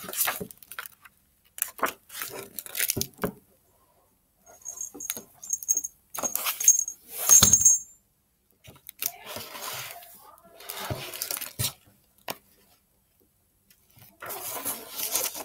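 A hardcover picture book being handled: its pages turned and rustling, with light knocks. About four seconds in, a light jingling sounds in short repeated bursts for about three seconds.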